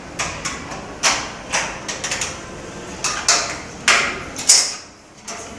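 Manual treadmill being folded up: the running deck and metal frame clank and rattle in a string of knocks, the loudest two near the end.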